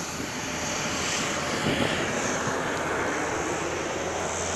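Small high-wing twin-engine turboprop airliner running its engines at takeoff power on its takeoff roll: a steady engine noise with a low hum underneath.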